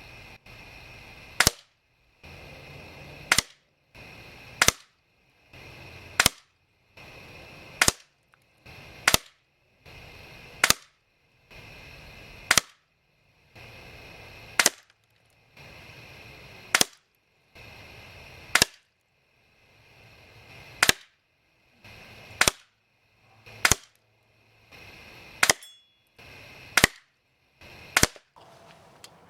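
Barra 1866 multi-pump pneumatic air rifle firing a rapid series of about seventeen single shots, each a sharp crack. The shots come one every one to two seconds, each after a short stretch of background noise and followed by an abrupt silent gap where the pumping between shots has been cut out.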